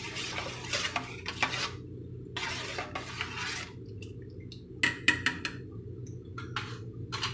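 A steel spoon stirs watermelon juice in a stainless steel bowl: the liquid swishes and the spoon scrapes and clinks against the bowl. From about five seconds in there are a few separate sharp clinks of metal on metal.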